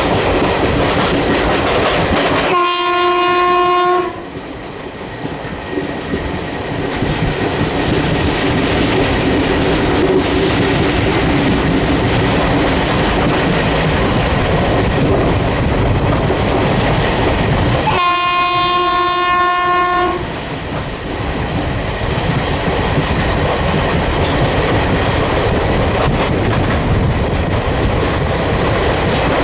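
WCAM2P electric locomotive horn sounding two steady one-note blasts, one about three seconds in lasting about a second and a half, the other about eighteen seconds in lasting about two seconds. Between them the train's wheels run on over the track with a steady clatter.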